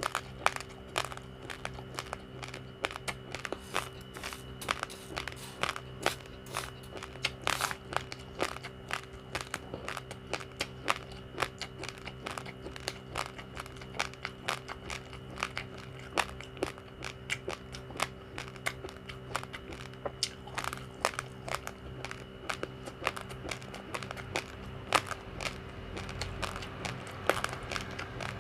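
Raw, uncooked rice grains being chewed and crunched between the teeth, with sharp crunches coming several times a second over a steady hum.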